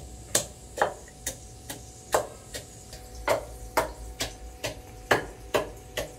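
Pestle pounding ginger and green chillies in a mortar, sharp even knocks about two a second.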